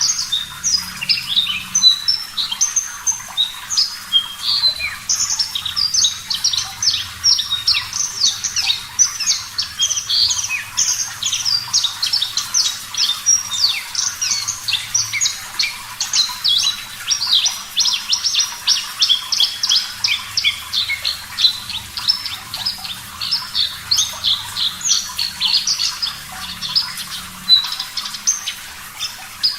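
Javan bush lark (Mirafra javanica parva) singing a continuous, fast song of short chirps and trills that jump about in pitch, several notes a second, with no pauses.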